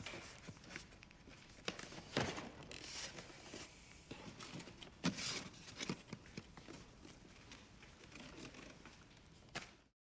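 Faint rustling and light knocks of a cardboard box being handled and carried, with soft footsteps, a few scattered small clicks over a quiet room.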